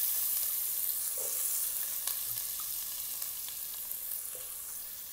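Chopped onions sizzling in hot oil in a pot, the sizzle slowly fading, with a few small crackles.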